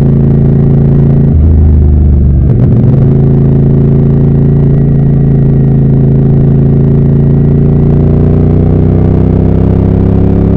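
CFMoto bobber motorcycle engine and exhaust running under way, heard raw from the bike. The engine note wavers briefly about a second and a half in, then holds steady and slowly rises near the end as the bike pulls.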